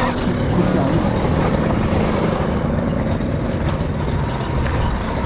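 Steady wind rush on the microphone and knobby-tyre noise on dirt and gravel as an electric KTM dirt bike rides along. There is no combustion engine note: the bike's electric motor adds little sound.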